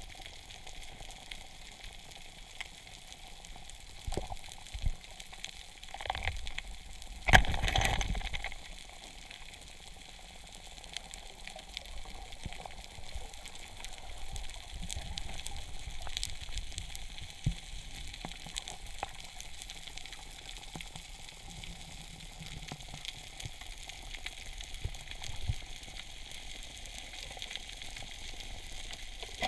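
Underwater ambience on a reef: a steady crackling hiss of many fine clicks. About seven seconds in comes a loud knock followed by a rush of water lasting about a second, with a few smaller knocks before it.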